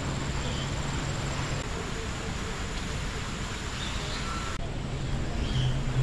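Outdoor background noise: a steady rushing hiss with a low hum, and a few faint, short, high chirps. The background changes abruptly twice, as at edits.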